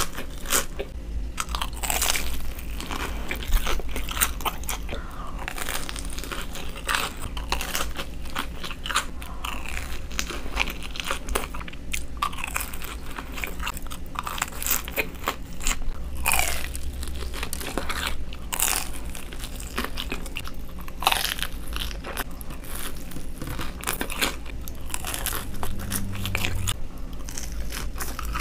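Crisp crunching bites and chewing of deep-fried Korean corn dogs with breadcrumb and potato-cube coatings: many irregular sharp crunches mixed with softer chewing.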